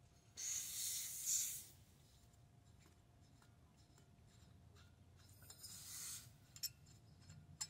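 A short hiss of propane escaping about half a second in, lasting just over a second, as the refilled 1 lb cylinder is unscrewed from its brass fill adapter: the release of trapped pressure in the fitting. A fainter hiss follows about five seconds in, with a few light clicks.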